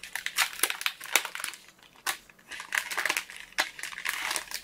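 Packaging being handled and crinkled by hand, a run of irregular crackles and rustles as the sound card's box contents, installation disc and manual are taken out.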